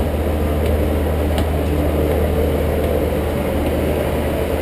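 Steady low hum of a passenger ferry's engines running, with a few faint clicks from footsteps on the deck.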